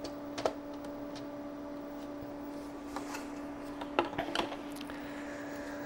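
A few sharp plastic clicks and knocks as the top cover of an Atari 1050 floppy drive's case is lifted off and handled, with a cluster of them about four seconds in, over a faint steady hum.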